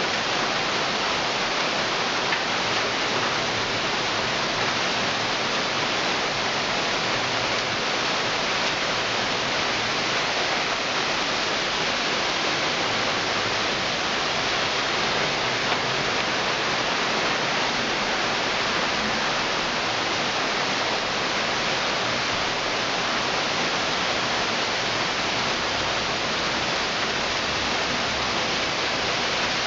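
Heavy thunderstorm downpour with a steady, even hiss of falling water.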